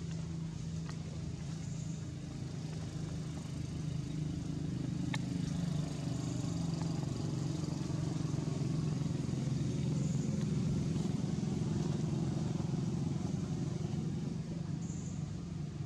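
A motor vehicle's engine running steadily, a low hum that grows louder through the middle and eases off near the end. Faint high chirps sound now and then above it.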